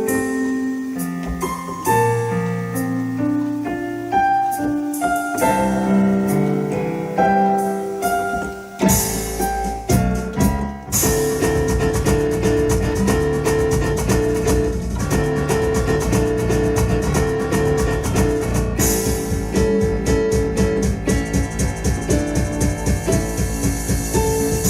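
Electone electronic organ playing an instrumental in a piano voice: a slower passage of held notes, then a few hard accents about nine seconds in, and from about eleven seconds a fast, driving dance groove with drums and bass.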